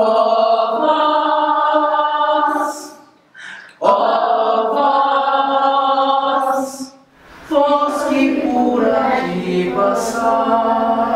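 Children's choir singing three long phrases of held notes, with a short pause between each.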